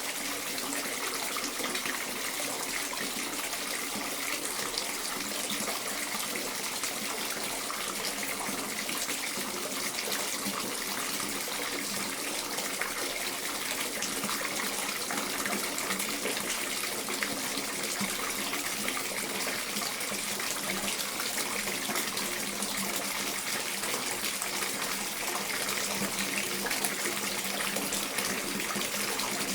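Household bathtub filling from the tap: a steady stream of water running into the tub.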